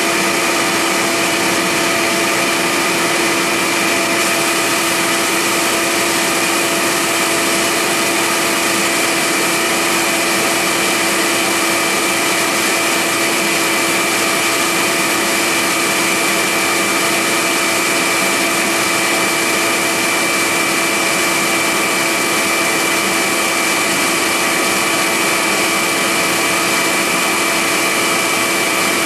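Vacuum nozzle held at the cutter runs together with a CNC-converted Central Machinery milling machine cutting a graphite mold. A loud, unbroken drone with a few constant pitched tones in it.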